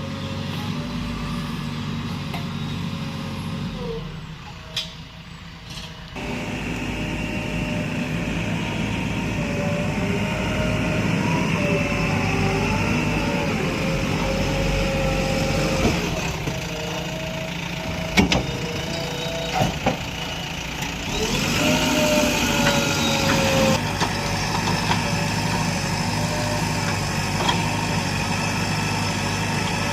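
JCB 3DX backhoe loader's diesel engine running steadily at work, with a whine that wavers up and down in pitch. The sound drops briefly about four seconds in, and a few sharp knocks come in the middle stretch.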